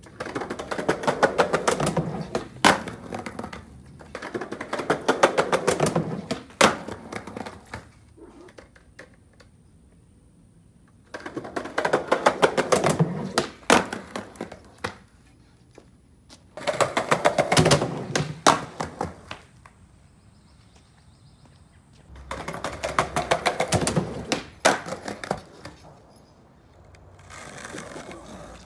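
Skateboard wheels clattering over the joints of concrete patio pavers in five or six separate runs of a few seconds each, with quiet between them. Most runs carry a sharper clack, the tail pop and landing of an ollie.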